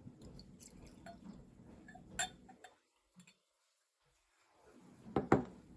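Light glass clinks and ticks as a whisky bottle's neck and a tulip-shaped tasting glass touch during a pour, with a sharper clink about two seconds in and the loudest clinks near the end. A stretch of dead silence falls in the middle.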